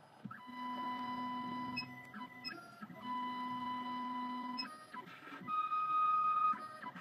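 CNC key cutting machine's stepper motors whining as the machine moves, in three runs: two of about one and a half seconds at the same pitch, then a higher-pitched one near the end, with small clicks between.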